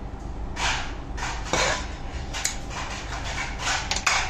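A spoon scraping and clinking against a bowl, about half a dozen short rasping strokes, as a pinch of salt goes into the beaten egg and sugar.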